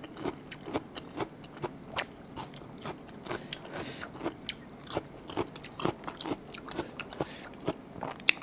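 Close-miked chewing with wet lip smacks and mouth clicks, a few sharp clicks a second at an uneven pace.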